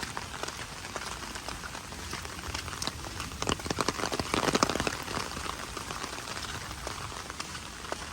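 Heavy rain falling on wet surfaces, a steady patter of drops that grows denser and louder for a second or so about three and a half to five seconds in.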